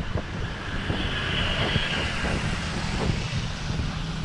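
A vehicle passing on a wet road: a steady rumble with a hiss that swells about a second in and fades away.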